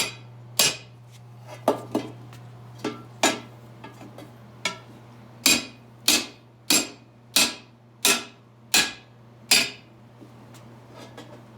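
Sharp metallic strikes ringing off a 1929 Packard's steel split rim as the tire is worked onto it: scattered knocks at first, then a steady run of about one strike every two-thirds of a second from about halfway in.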